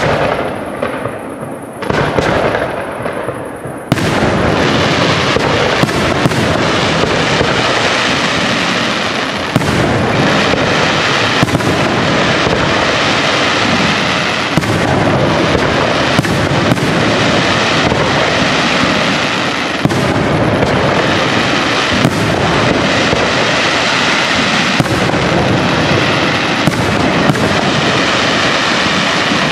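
Aerial fireworks display: shells launching and bursting overhead. A few separate bangs at first, then from about four seconds in a dense, unbroken barrage of bursts that keeps up.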